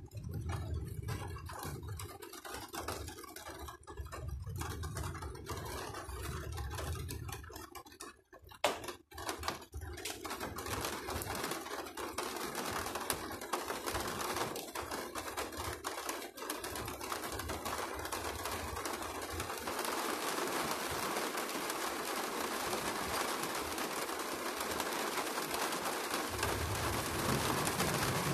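Rain falling, a dense patter of drops that grows heavier about halfway through. A low rumble sounds at the start and again near the end, and there is one sharp click about eight seconds in.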